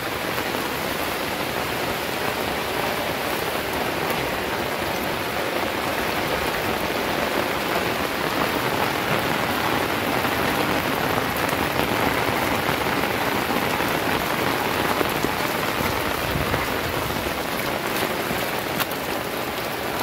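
Heavy rain falling steadily on a wet asphalt lane: a dense, even hiss of drops hitting the paved surface and the water on it. A few sharp ticks come near the end.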